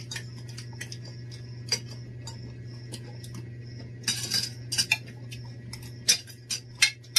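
Forks clinking and scraping on ceramic plates while two people eat, in scattered clicks with a busier run about four seconds in and more near the end. A steady low hum sits underneath.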